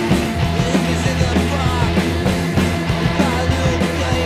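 Punk rock band recording: electric guitars, bass and drums playing at a steady beat.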